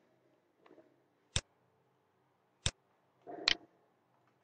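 Sharp clicks of a computer mouse button: three loud ones about a second apart, with a fainter one under a second in.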